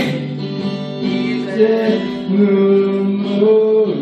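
Acoustic guitar playing with voices singing a slow song, drawing out long held notes.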